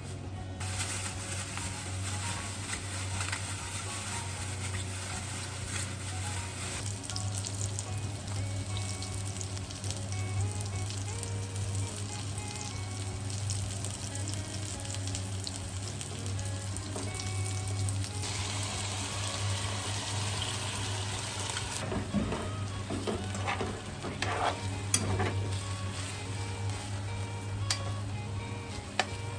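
Food sizzling and crackling in a frying pan: a steady hiss with scattered pops. From about two-thirds of the way through, a utensil is added, scraping and clattering against the pan as the food is stirred.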